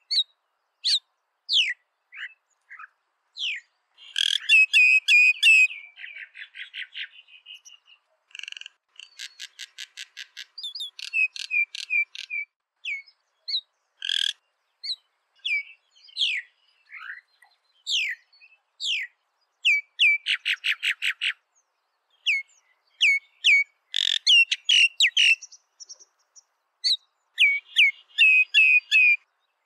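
Common myna singing: a varied string of short rising and falling whistles and dense, harsh phrases, broken by two fast trains of repeated notes at about ten a second, with short gaps between phrases.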